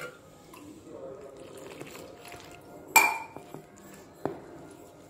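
Jowar flour and water being mixed by hand in a stainless-steel bowl: faint mixing sounds, with one sharp ringing clink against the steel bowl about three seconds in and a lighter tap a little after four seconds.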